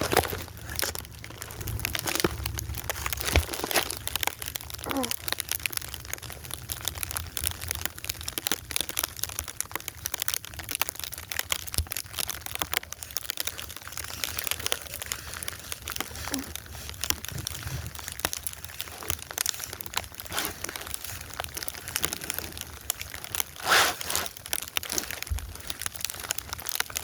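Snow crunching and crackling close to the microphone, a dense, irregular run of small crackles.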